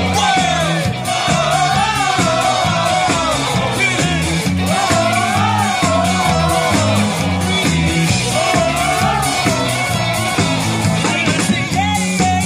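Live rock band playing: a male singer's sung melody over electric guitar, bass guitar and a drum kit with a steady beat.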